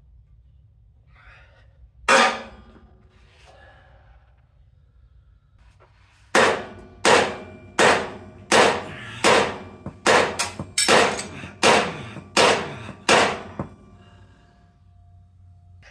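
Hammer blows on steel on a truck's rear axle and suspension, ringing with each hit: one blow, then a steady run of about ten blows roughly 0.7 s apart. They are struck while trying to free a stuck bracket.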